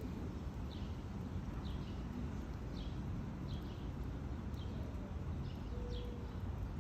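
A small bird calling a short, falling, high chirp about once a second, over a steady low rumble.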